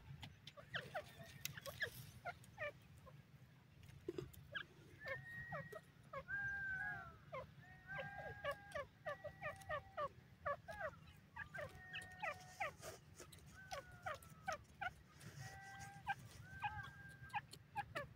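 Grey francolin giving runs of short clear notes, some falling in pitch, thickest through the middle of the stretch. Faint scattered clicks and a steady low rumble lie underneath.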